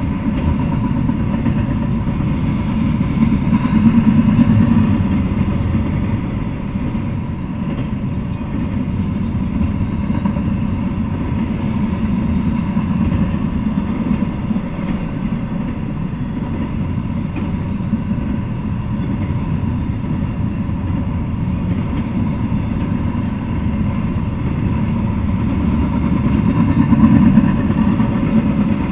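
Double-stack intermodal freight train rolling past: a steady rumble of wheels on the rails that swells about four seconds in and again near the end.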